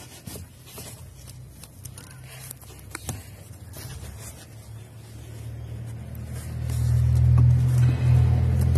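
Cabin air filter scraping and knocking against its plastic housing as it is pushed into place by hand. A low vehicle-like hum swells up about five seconds in and is loudest near the end.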